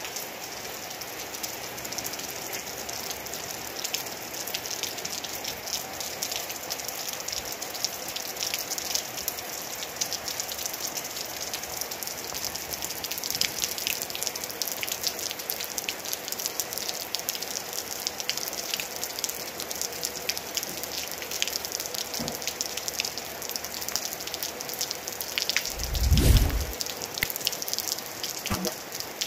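Steady rain falling, with many individual drops striking close by. About three-quarters of the way through there is a brief low rumble, the loudest moment.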